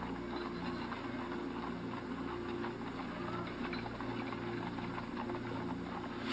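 A low, steady droning hum made of several held low tones.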